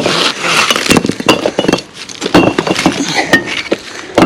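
Old bricks knocking and clinking against one another as they are pulled loose from a crumbling wall and handled, a quick series of sharp hard knocks.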